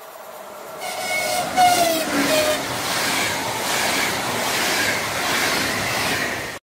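Electric passenger train passing close by. The locomotive goes by about a second in with a few brief falling tones, then comes a steady loud rush and clatter of the coaches. It cuts off abruptly near the end.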